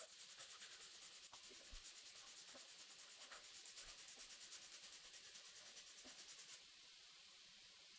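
Faint sanding on a steel knife blade to remove deep scratches left by a coarse 36 grit belt, a fast, even scratching rhythm that stops suddenly about six and a half seconds in.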